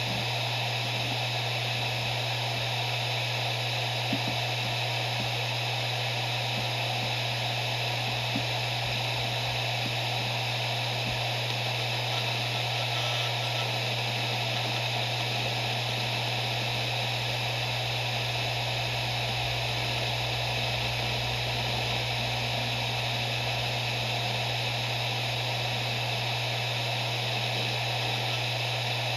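Maxtor MaXLine Plus II 7200 RPM hard drive spinning: a steady hum under an even whirring hiss, with a couple of faint ticks a few seconds in.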